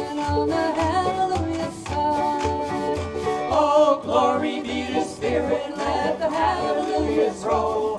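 Kitchen band playing an upbeat country-gospel tune: a wavering melody line carried by voices or buzzing instruments over string accompaniment and a steady bass beat about twice a second.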